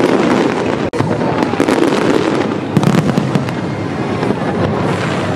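Fireworks display, a dense run of rapid crackles and bangs that briefly cuts out about a second in.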